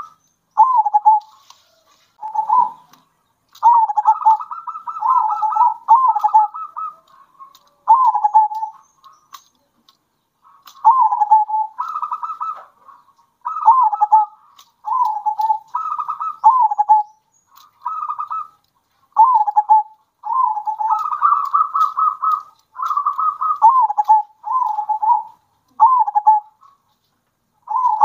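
Several zebra doves (perkutut) cooing in turn. Their short phrases follow one another with brief gaps, many stepping down in pitch at the end.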